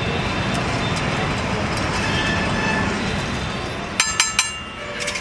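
Steel spatula spreading oil across a large flat steel griddle over a steady hiss, then a quick run of sharp metallic clinks about four seconds in as the spatula knocks against the griddle.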